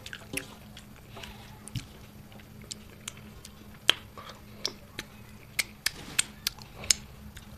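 A person chewing a mouthful of rice close to the microphone, with irregular sharp smacking clicks from the mouth, more of them in the second half.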